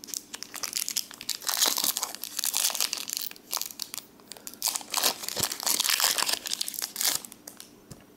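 Foil booster-pack wrapper crinkling and tearing as it is opened, in two main stretches of crackle with small clicks between.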